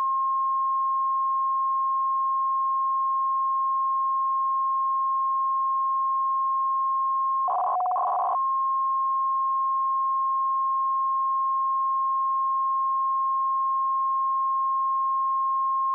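Longwave radio signal at 130 kHz received through a WebSDR: a steady beep tone over faint receiver hiss. About seven and a half seconds in, a short scrambled burst breaks in briefly before the steady tone resumes.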